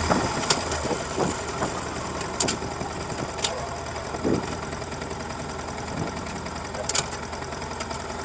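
Yamaha MT-15's stock-exhaust 155 cc single-cylinder four-stroke engine running steadily at low revs, with a few short sharp clicks over it.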